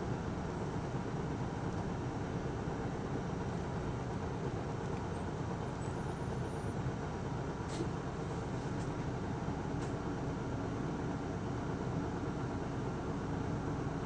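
Isuzu Erga city bus (PKG-LV234L2) running between stops, heard inside the cabin: a steady diesel engine hum and road noise, with a few faint ticks about eight and ten seconds in.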